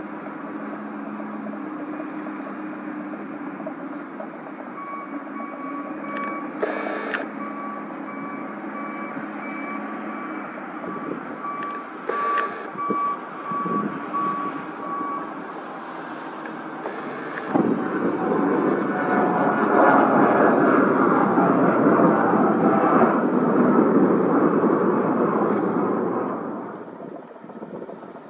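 Twin-turboprop British Aerospace Jetstream 32 with its Garrett TPE331 engines running with a steady high whine. About two-thirds of the way in it goes to full power: a loud, sudden rush that fades away near the end.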